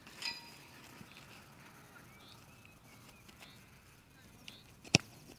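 A boot striking a Gaelic football in a long-range free kick: one sharp thud near the end, after a quiet run-up on grass.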